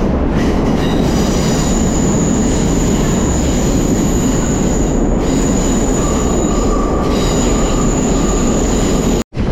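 Railway passenger car rolling on the track: a steady rumble of wheels on rail with a thin, high wheel squeal, joined by a lower squeal for a couple of seconds in the second half. The sound cuts out briefly just before the end.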